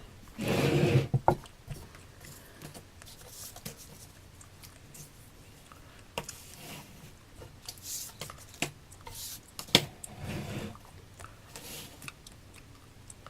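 Handling sounds: scattered small clicks, taps and rustles, with a louder rustle about half a second in and another near ten seconds.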